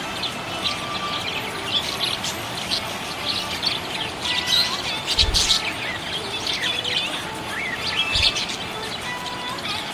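Small pet parrots chirping and chattering, a dense stream of short high chirps and warbles. There are two brief low thuds, about halfway through and near the end.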